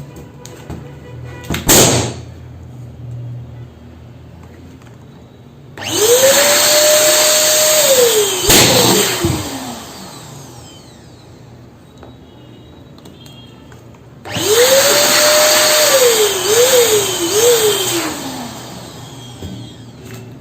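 A balloon bursting with a sharp bang about two seconds in, then an electric balloon pump blowing twice, each time spinning up to a steady whine and winding down with a falling, wavering pitch.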